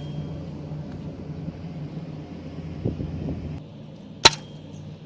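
A single air pistol shot: one sharp crack about four seconds in, over a steady low hum.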